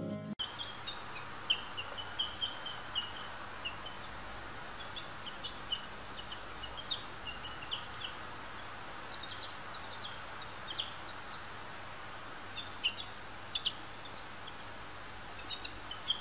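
Baby chick peeping: short, high cheeps come irregularly, several a second at times, over a steady background hiss.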